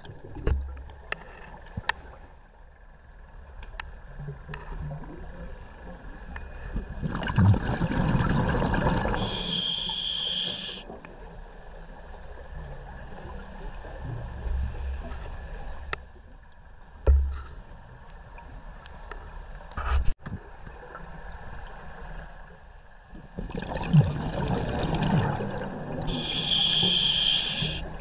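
Scuba diver breathing underwater through a regulator: two slow breaths, each a long bubbling exhalation followed at once by a short hiss from the demand valve on the inhale, with small clicks between.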